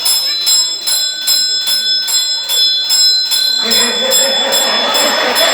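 A small bell rung over and over at an even pace, about three strikes a second, its high ringing tones running on between strikes. Voices come in near the end.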